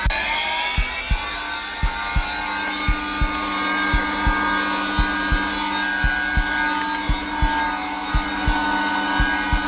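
Zelmer vacuum cleaner running steadily at its lowest setting, its motor whine rising a little in pitch just after the start. A heartbeat thumps underneath in double beats, about one pair a second.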